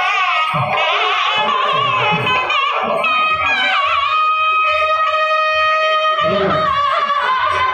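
Nadaswaram playing a wavering, ornamented Carnatic melody, holding one long note in the middle, with thavil drum strokes beating steadily underneath.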